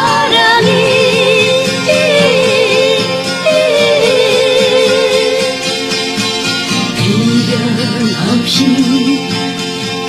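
Recorded Korean pop song: a woman's voice sings a melody with vibrato over instrumental accompaniment.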